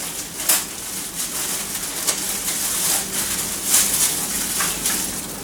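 Packaging being handled during unboxing: irregular rustling and crinkling with a few sharper scratchy rustles, as parts are pulled out of the box.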